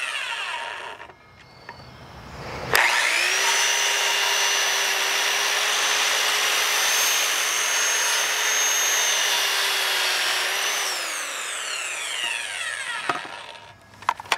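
Corded Ryobi 7-1/4 in. circular saw with a 24-tooth blade cutting a pressure-treated 4x4 post: the motor winds down at the start, starts again about three seconds in and spins up to a steady whine through the cut, then winds down near the end with a click.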